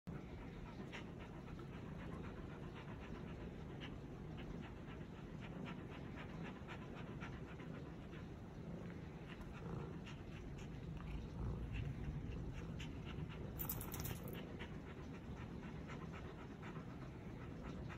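A dog panting quickly and steadily with its mouth open, the stress panting of a dog frightened by thunder. A low rumble swells briefly around the middle.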